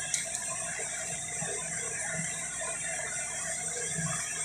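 Torque wrench pulled on a flywheel bolt: faint creaks and scrapes over a steady background hiss, ending in a sharp click.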